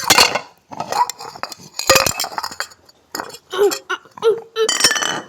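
Cutlery and dishes clinking and scraping close to the microphone, in a string of sharp, loud strokes.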